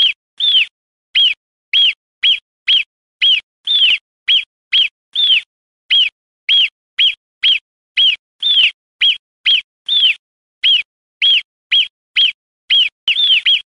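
An animal's call: short, high chirps repeated about two times a second, each one dipping in pitch, with silence between them.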